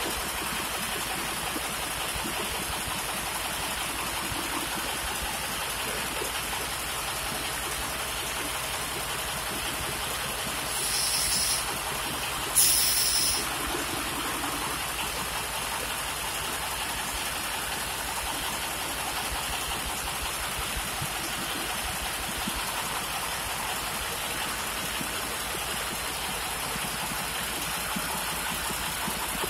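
1947 Murphy diesel engine idling steadily, with two short hisses of air about eleven and thirteen seconds in.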